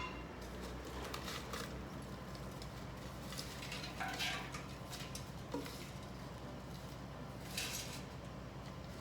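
Cooking gear being handled: scattered light taps and clinks, a few seconds apart, over a steady low hum.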